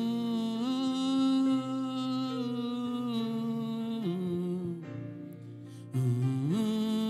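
A voice humming a slow wordless worship melody in long held notes, sliding up into each new note, with a softer stretch before a new phrase begins about six seconds in.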